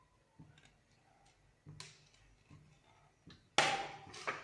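A few light knocks and clicks of kitchen utensils, with a louder brief clatter about three and a half seconds in.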